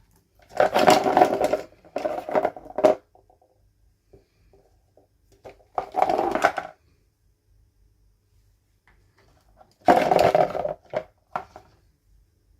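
Toy packaging handled and opened, rustling and scraping in four short bursts with quiet pauses between.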